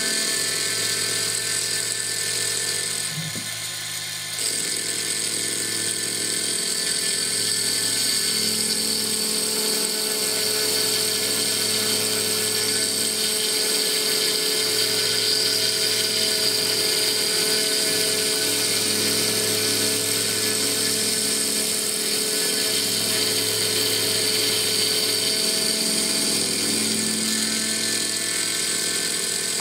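High-speed CNC mill spindle running a small end mill through Stone Hopea burl wood as the stock turns in a rotary chuck, a steady high-pitched whine with cutting noise from the wood being machined away. The sound dips briefly about three seconds in, then carries on steadily.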